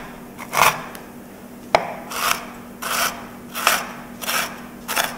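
Kitchen knife chopping Oreo cookies on a wooden cutting board: repeated crunching, scraping strokes about one every half to three-quarters of a second, with one sharp click a little under two seconds in.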